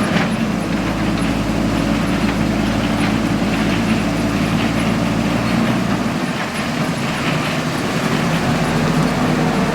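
Heavy diesel machinery engine running steadily, with a few light knocks over it.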